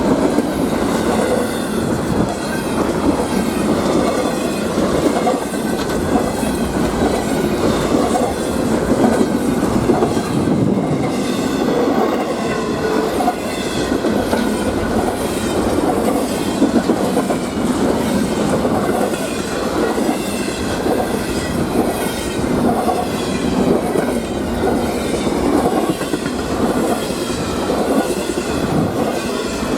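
Freight train cars rolling past at steady speed: a continuous rumble of steel wheels on rail with clicking over the rail joints.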